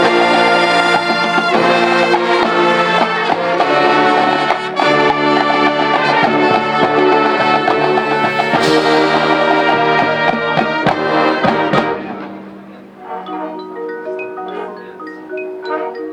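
Marching band playing: a loud full brass ensemble with sharp percussion hits, dropping about twelve seconds in to a softer passage of held brass chords under marimba and xylophone notes from the front ensemble.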